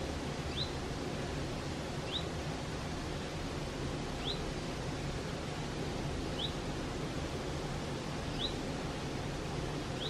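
Steady rushing of a mountain stream flowing over rocks. Over it, a bird gives a short rising call about every two seconds.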